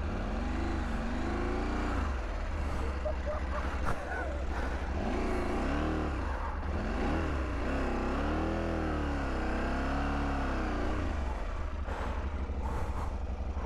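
KTM 890 Adventure motorcycle's parallel-twin engine being revved up and down as the rider works the throttle on a muddy trail, its pitch rising and falling again and again, with a steady low rumble and wind hiss underneath.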